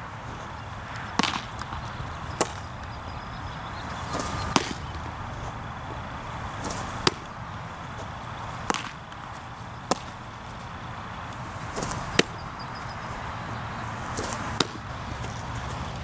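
Baseballs smacking into a catcher's leather mitt: sharp pops, about eight in all, one every one to two and a half seconds, over a steady outdoor hiss.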